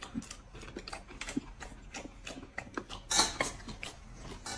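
Eating at a table: chewing and mouth noises with scattered small clicks of chopsticks against a bowl, and one brief louder scrape or rustle about three seconds in.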